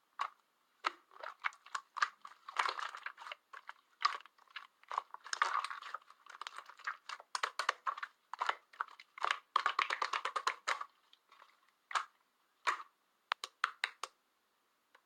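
Hands squishing and poking slime: quick, irregular sticky clicks and pops. They come in dense runs through the middle, then thin out and stop shortly before the end.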